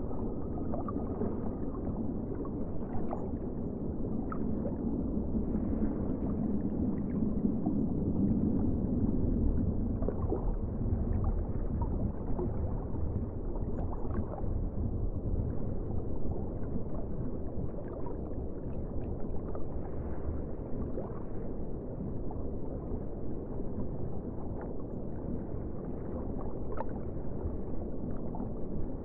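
Steady, muffled water noise with a low rumble and scattered faint clicks, with no clear animal call.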